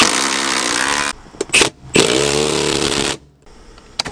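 Cordless impact driver tightening a seat's mounting bolt, in two runs of about a second each with a couple of short clicks between.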